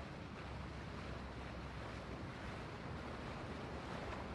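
Motor yacht cruising past: a low steady engine drone under the rushing of water from its hull and wake.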